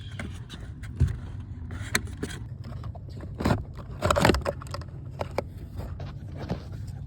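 Blower motor of a BMW E90's heater and AC being twisted and worked loose from its plastic housing: irregular plastic clicks, knocks and scraping, with a sharper knock about a second in and a louder cluster of scrapes around four seconds in.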